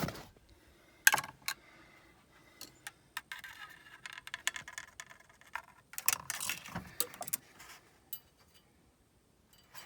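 Engine oil dipstick being handled, wiped and slid back into its tube: scattered light metallic clicks and clinks, with a stretch of soft rubbing in the middle.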